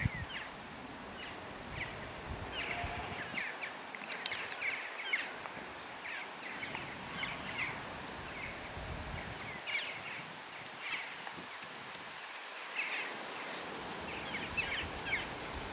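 Small birds chirping in quick, repeated short calls throughout, with an occasional low rumble of wind on the microphone.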